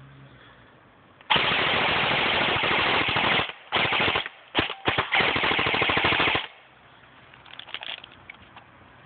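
Airsoft rifle firing on full automatic: a long burst starting about a second in, a couple of short bursts and single pops, then another long burst that stops abruptly about six seconds in.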